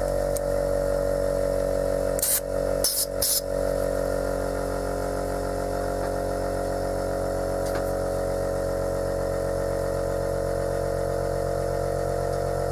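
Air compressor running steadily with a rhythmic low pulse. About two to three seconds in come three short hissing blasts of compressed air from a blow gun, blowing out the freshly cleaned common-rail pressure control valve.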